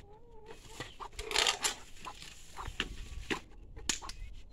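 Hens clucking while a heap of freshly pulled grass is rustled and pulled about in a wheelbarrow, with a few sharp knocks in the second half.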